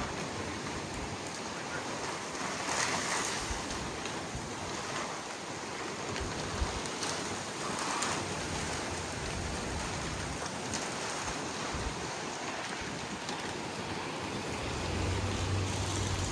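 Storm wind and rain rushing steadily, swelling in gusts about three and eight seconds in, with a few sharp ticks of drops or small hail striking close by. A low hum comes in near the end.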